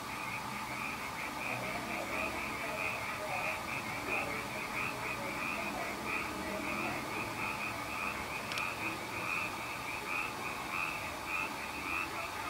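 A chorus of frogs croaking at night: a steady, rapidly repeating call, about three or four croaks a second, with one faint click about two-thirds of the way through.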